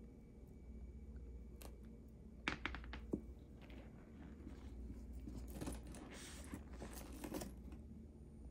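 Faint handling sounds of a woven leather satchel being lifted and turned: a few light clicks between about one and a half and three seconds in, then rustling and rubbing of leather for about two seconds near the end.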